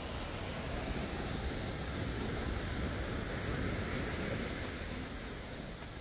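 Ocean surf breaking and washing on a beach: a steady wash with one wave swelling up about two seconds in and dying away near the end, and wind rumbling on the microphone.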